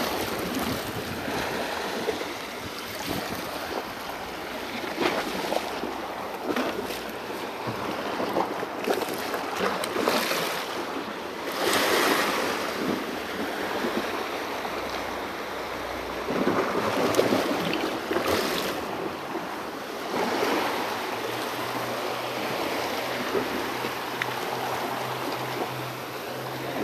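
Small waves washing and surging against shoreline rocks, swelling louder every few seconds, with wind buffeting the microphone.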